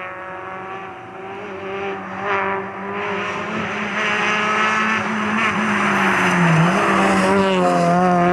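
Peugeot 206 rally car's engine held at high revs, growing louder as the car approaches. About six and a half seconds in its pitch dips briefly, then climbs back up.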